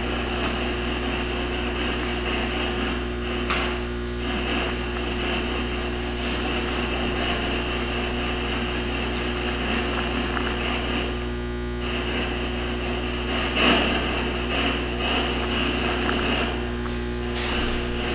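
Steady electrical hum under a constant hiss, with a faint click about three and a half seconds in and a soft knock near the end.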